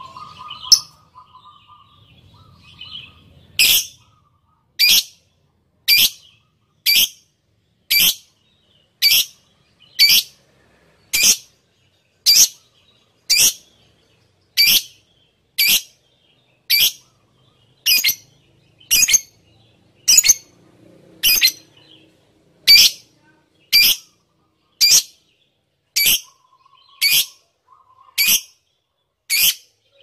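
Lovebird calling, soft chatter at first, then a sharp, shrill call repeated evenly about once a second. It is a lure call meant to set other lovebirds calling back.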